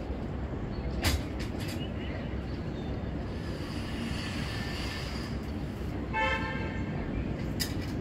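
Steady low outdoor rumble with a short, single horn toot about six seconds in. A brief knock sounds about a second in.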